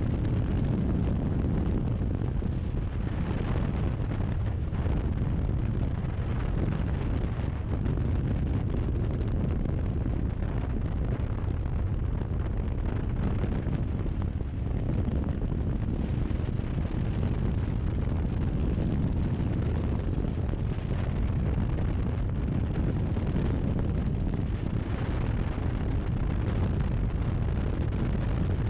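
Steady wind rumble on the microphone of a camera mounted on a moving 1200 cc motorcycle, over the bike's engine and tyre noise at road speed.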